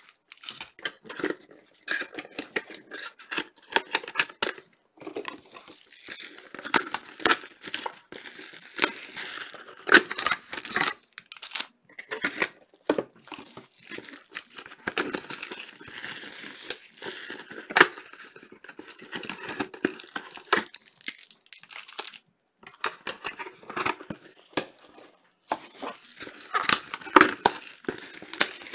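Packs of 2019-20 Panini Chronicles Soccer trading cards being torn open, their wrappers crinkling, in irregular handling bursts with short pauses between them.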